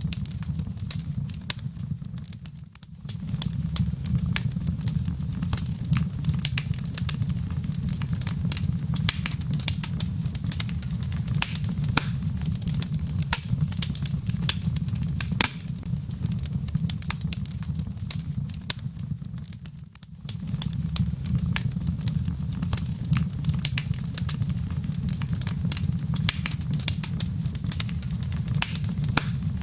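Wood fire crackling with many quick snaps, over a low steady rumble of wind that briefly dies away twice.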